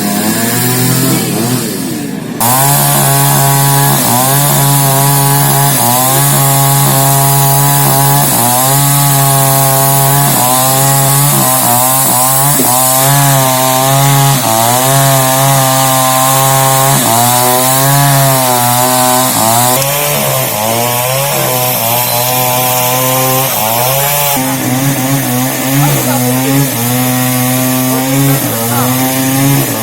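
Chainsaw cutting into the wood of a fallen tree, its engine pitch rising and dropping again and again as the cuts load it.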